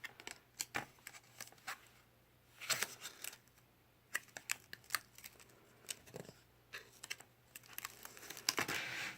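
Card pages and flaps of a lift-the-flap board book being handled: scattered light taps and clicks, with short rustles of card sliding about three seconds in and again near the end.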